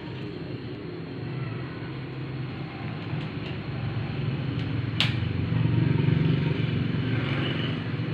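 Handling of a stand fan's wire front guard as it is fitted, with one sharp click about five seconds in, over a steady low motor hum that swells for a couple of seconds after the click.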